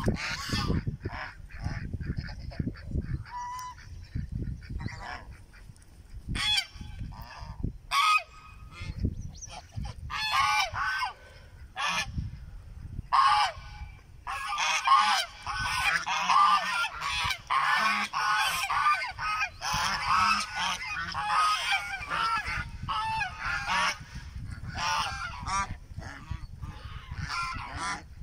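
A flock of domestic geese honking: scattered single honks at first, building from about halfway into a dense chorus of overlapping honks, then thinning out again near the end.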